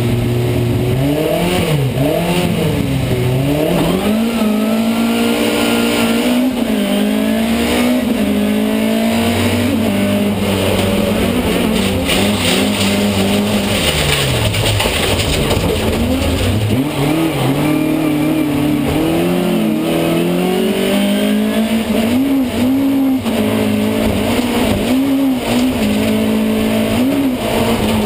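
Rallycross race car's engine heard from inside the stripped cabin, running hard under load, its pitch climbing and dropping back again and again through gear changes.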